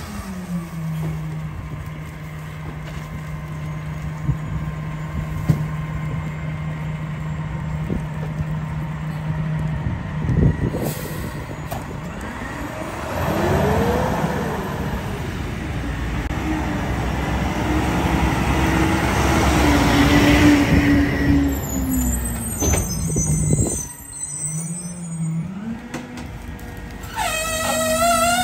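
Diesel engine of a Mack Granite garbage truck with a McNeilus rear loader, running steadily. About ten seconds in comes a sharp hiss like an air-brake release, then the engine revs as the truck pulls away and runs louder on the move. Near the end the truck stops, its engine speeds up again, and a high wavering squeal sounds.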